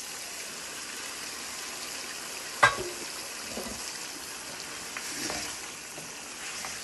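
Sliced potatoes sizzling in hot oil and fried masala in a steel pan, with the scrape and knock of a spoon stirring them; a single sharp clack about two and a half seconds in.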